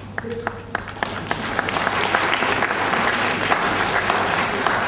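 Audience applauding: a few separate claps that build within a second or two into full, dense applause.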